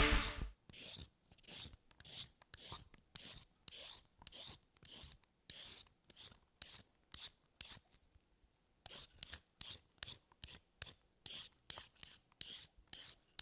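Repeated rasping strokes, about two a second, like a hand scraping or rubbing against a rough surface, with a pause of about a second a little past the middle.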